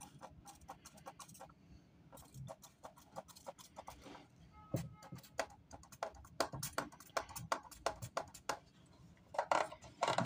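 Small stones clicking and tapping against each other: decorative pebbles and gravel being handled and set into a terracotta pot, in quick irregular clicks that come thicker in the second half, with a short louder rush of noise near the end.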